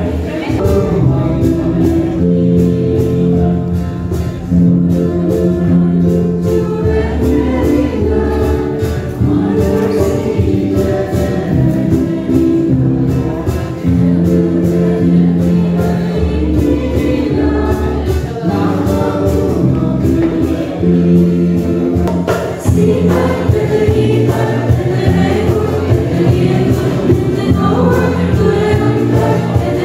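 A choir of men and women singing a Christmas carol in held chords, accompanied by keyboard and guitar.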